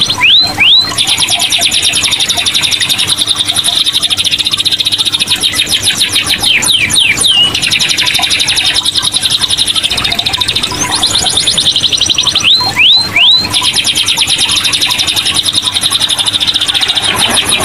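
Domestic canary singing without pause: long, rapid rolling trills, broken a few times by short upward-sweeping whistled notes.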